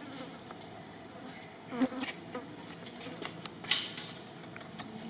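A flying insect buzzing in short passes close by, with two sharp clicks about two and three-and-a-half seconds in.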